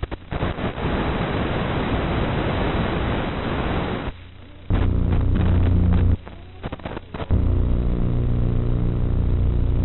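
Static noise in the audio track of an analog FPV goggle recording: a loud hiss for about four seconds, then a steady low electrical buzz that drops out for about a second after six seconds and comes back.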